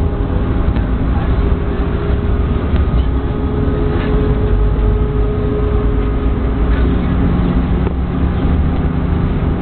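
Tram running along its track, heard from inside the car: a steady low rumble of wheels on rails with a steady motor hum and a few scattered clicks.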